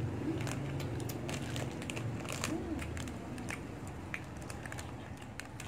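People chewing and biting into chocolate snacks while plastic snack wrappers crinkle, heard as scattered sharp clicks, crunches and rustles.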